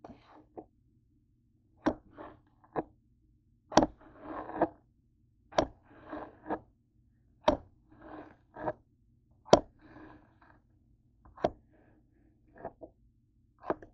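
Kitchen knife chopping a zucchini into chunks on a cutting board: a sharp knock of the blade hitting the board about every two seconds, with softer scraping and rustling between the cuts. A faint steady hum runs underneath.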